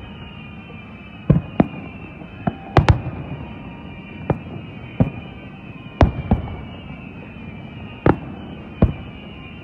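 Aerial fireworks shells bursting: about a dozen sharp booms at uneven intervals, several coming in quick pairs.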